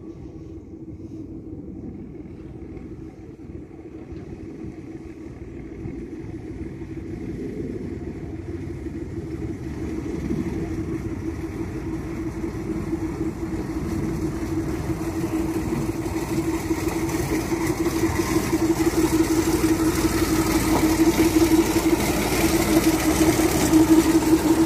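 Motor Rail Simplex 60S 60 hp narrow-gauge diesel locomotive running at a steady note, growing steadily louder as it approaches and draws alongside.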